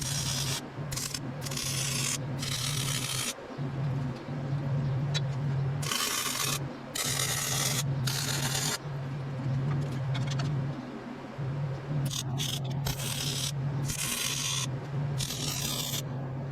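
Metalwork on a steel trailer frame: repeated bursts of harsh, crackling hiss, each from a fraction of a second to a few seconds long, over a low hum that stops and starts.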